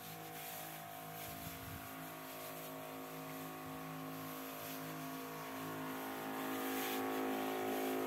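Electric pump of a battery backpack sprayer humming steadily as it sprays, slowly getting louder.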